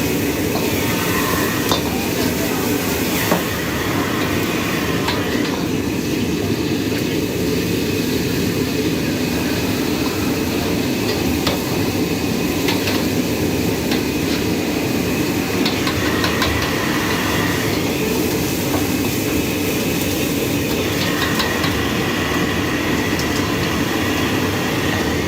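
Steady loud rumbling din with scattered light clinks of metal cookware and utensils.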